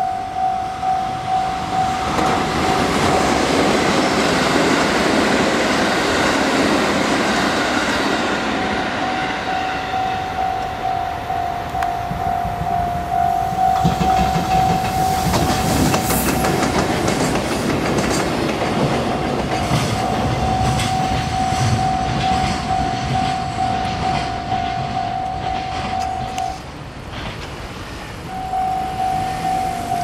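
Japanese level-crossing alarm sounding a steady, repeating electronic tone about twice a second while a freight train hauled by a JR Freight EF210 electric locomotive passes. The train noise swells about two seconds in, with the wheels clattering over the rail joints, then fades near the end, when the alarm breaks off briefly and starts again.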